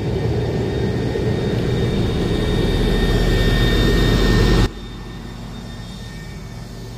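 A single-drum vibratory road roller's engine running under load, a steady heavy rumble with a faint whine on top that grows louder, then drops suddenly to a much quieter steady run about two-thirds of the way through.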